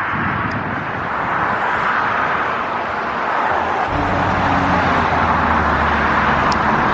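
Road traffic: a steady rush of tyre and road noise from a passing vehicle, with a low engine hum joining in about four seconds in.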